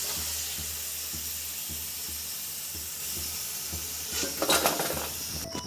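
Hot oil sizzling steadily around deep-frying masala-coated potato fries, with a few light utensil knocks about four to five seconds in.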